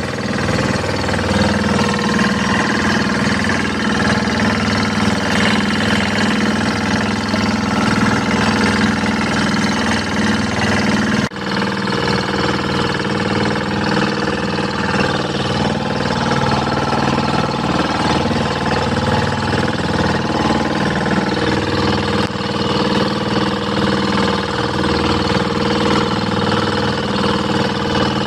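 A fishing boat's engine running steadily, with a brief dip about eleven seconds in.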